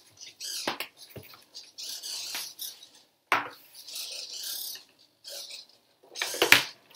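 Small hobby servo motors whirring in short bursts, each under a second, as they tilt a cardboard labyrinth board, with several sharp knocks on the cardboard; the loudest clatter comes near the end.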